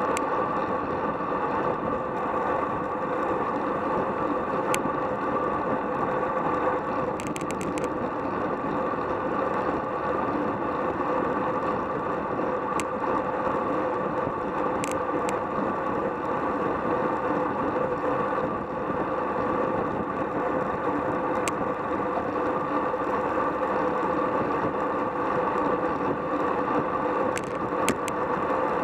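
Road bicycle rolling at about 24 mph in a pack: steady wind rush on the microphone and tyre noise with a steady hum, broken by occasional sharp clicks from the bike, including a quick rattle of clicks about seven seconds in.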